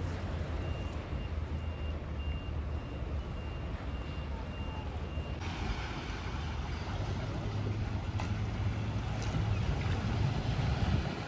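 Low, steady engine rumble with a high electronic warning beep repeating about twice a second, like a vehicle's reversing alarm, which stops about halfway through.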